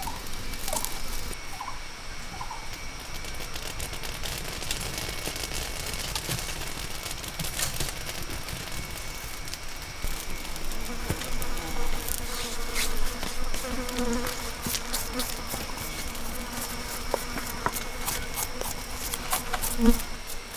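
Steady droning of forest insects, with scattered sharp clicks and taps over it.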